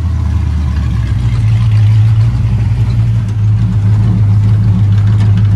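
Old hot rod's engine running steadily at low speed, a deep even drone heard from inside the open car as it rolls along.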